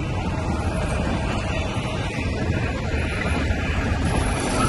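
Steady low rumble of the Nilgiri Mountain Railway train running along the track, heard from an open carriage window.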